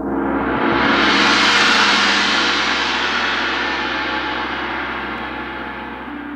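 A gong swelling up to a loud, bright peak over the first two seconds or so, then slowly dying away over its steady low tones.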